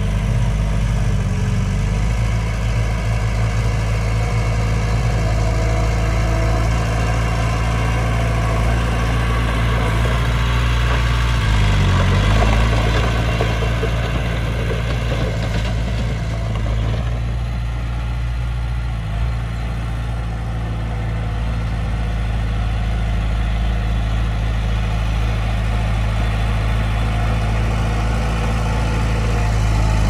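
Diesel engine of heavy earthmoving equipment running steadily, its pitch dipping briefly and recovering about twelve seconds in.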